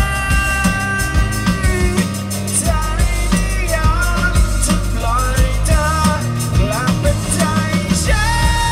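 Live rock band playing: a singer holds long notes, then moves through a wavering melody, over guitar, bass and a steady drum beat.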